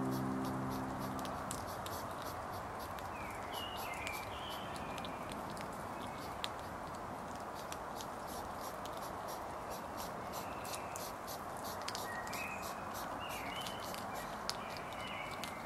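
European hedgehog snuffling and chewing close by, heard as many fine clicks over a steady background hiss, with short bird chirps a few seconds in and again from about ten seconds on. The last notes of background music fade out in the first second or two.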